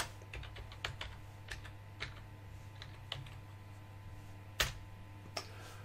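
Computer keyboard being typed on slowly: scattered single key clicks, with one louder keystroke about four and a half seconds in, over a faint steady low hum.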